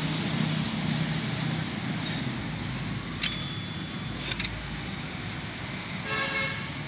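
Steady road traffic noise, with two sharp metallic clinks of hand tools being handled a few seconds in and a short pitched sound near the end.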